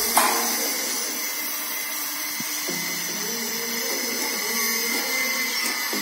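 Steady high-pitched whirring hiss of a motor-driven machine, with a faint tune of stepped notes underneath.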